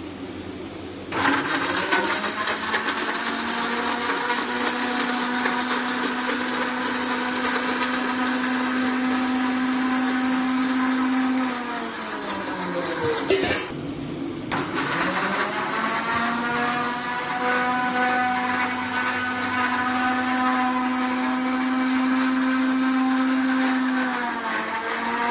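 Electric mixer-grinder with a stainless-steel jar running in two spells. The motor switches on about a second in, whines up to a steady pitch, runs for about ten seconds and winds down. After a short pause it is started again, runs steadily for about another ten seconds and winds down near the end.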